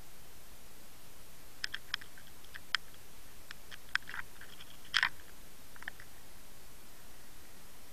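Underwater camera recording in its sealed housing: a steady hiss with a scatter of short, sharp clicks and ticks, the loudest a quick cluster about five seconds in.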